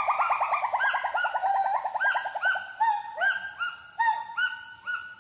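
A gibbon's song. A fast run of short whooping notes slowly falls in pitch, then slows into spaced hoots, each one rising.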